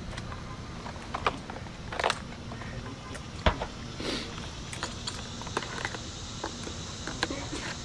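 Scattered light clicks and knocks, with one sharper knock about three and a half seconds in.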